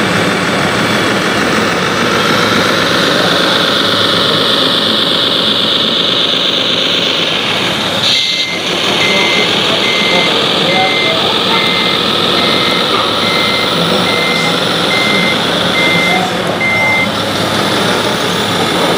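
Radio-controlled MAN 8x8 dump truck running, its motor and drivetrain whining with a slowly shifting pitch. From about eight seconds in, a reversing beeper sounds steadily, about one high beep every three-quarters of a second, and stops near the end.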